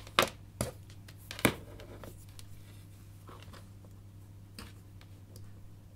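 Handling noise of multimeter test probes and their leads: a few sharp clicks and taps in the first second and a half as the probes are picked up and touched to a resistor's leads, then fainter scattered ticks over a steady low hum.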